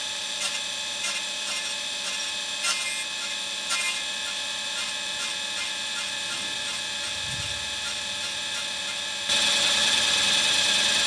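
Table saw running, its blade raised to half the thickness of 5/8 plywood and cutting a shallow half-lap kerf as the piece is pushed across. The sound is a steady hum that gets suddenly louder about nine seconds in.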